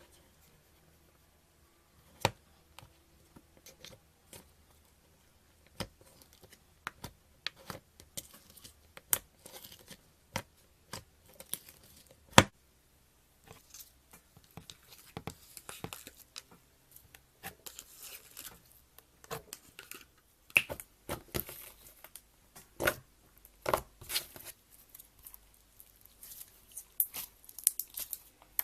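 Slime being worked by hand, giving irregular sharp clicks, pops and crackles that come thicker in the second half.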